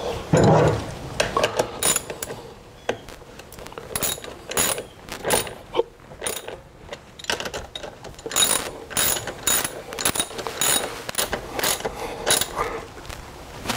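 Ratchet wrench clicking in quick runs, stopping and starting, as a nut is tightened down on a battery terminal.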